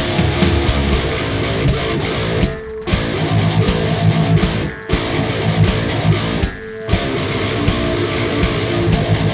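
Industrial metal instrumental passage: a loud, heavy electric-guitar riff that cuts out for a moment about every two seconds, three times.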